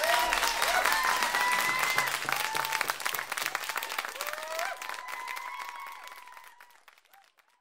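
Live concert audience applauding and cheering after a song. The applause fades out to silence near the end.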